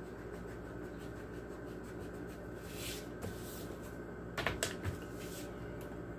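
Pencil scratching on paper in short strokes as words on a worksheet are underlined, with a few sharper taps about four and a half seconds in, over a steady low hum.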